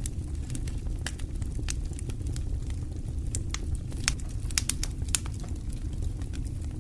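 Wood fire crackling, with irregular sharp pops and snaps over a steady low rush; a cluster of louder pops comes about four to five seconds in.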